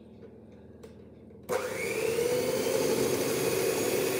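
Electric hand mixer switched on about a second and a half in, its motor spinning up quickly and then running with a steady whir as its beaters mix cupcake batter.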